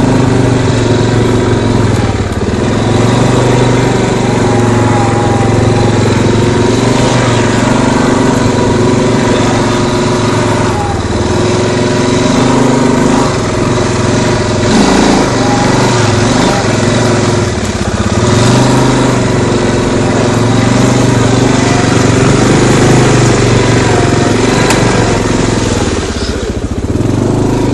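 CF Moto 500 4x4 quad's engine running hard on a trail, its pitch rising and falling as the throttle is opened and eased, with short drops in level a few times.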